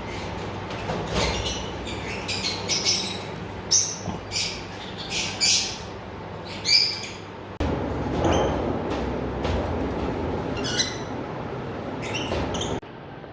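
Fischer's lovebirds calling: a string of short, high-pitched chirps and squawks over a steady low background noise.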